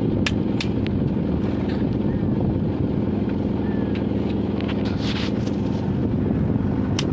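Steady drone of an engine running nearby, with a few sharp metallic clicks from the socket wrench working the cylinder head bolts, twice early and once near the end.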